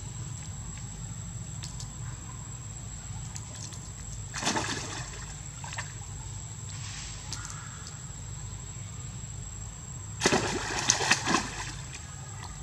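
Monkeys splashing into a pool of water: a short splash about four seconds in, then a louder splash with several slaps of water about ten seconds in.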